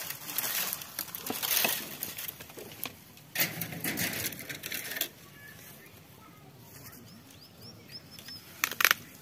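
Dry dead vines and weed stems rustling as they are grabbed and pulled off a trellis by hand, in two longer bouts and a short sharp burst near the end.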